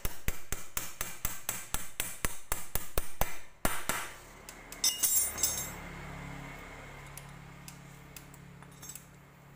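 Rapid, even metallic clicking, about five clicks a second, from a hand tool working a bolt on the engine casing of a Yamaha Jupiter Z motorcycle. It stops after about three and a half seconds, followed by a few lighter metal clinks as the bolt comes free.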